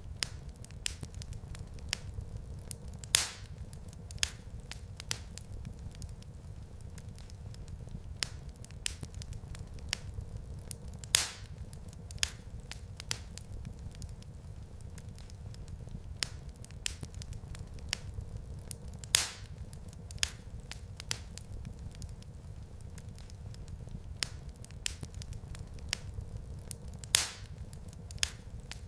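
Wood fire crackling in a fireplace: a steady low rumble of flames with frequent small snaps, and a louder pop about every eight seconds.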